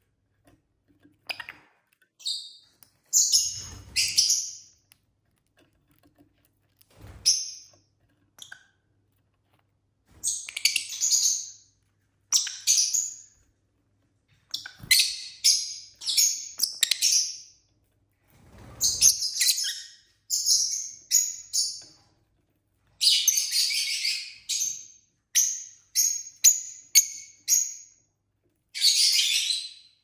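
Lovebirds chirping in sharp, high-pitched bursts of a second or two, with short pauses between, coming thicker and faster in the second half.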